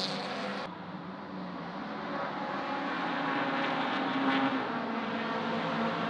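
Race car engine on the circuit, getting louder as a car approaches, its note dropping slightly about five seconds in.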